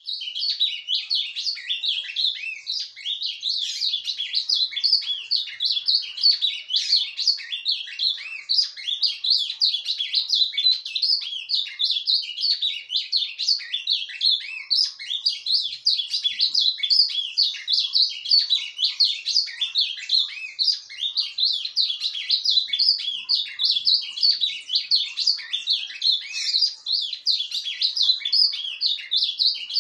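Caged male ultramarine grosbeak (azulão) singing a continuous, rambling warble of quick chirping notes with no pauses, the soft run-on 'surdina' subsong that the owner asks about.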